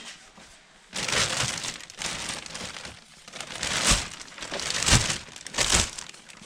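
Packaging crinkling and rustling as it is pulled off a lathe, with a few sharp knocks in the second half.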